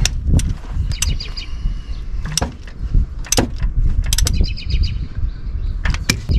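A hand ratchet and socket on a temporarily fitted crankshaft bolt, turning the engine by hand to line up the timing marks. It makes scattered metallic clicks and clanks, with short ringing ratchet sounds about a second and about four seconds in, over a steady low rumble.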